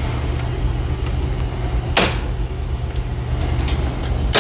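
Two sharp snaps at a household electrical breaker panel, one about two seconds in and a louder one near the end, over a steady low hum: the breaker for the AC condenser being switched back on.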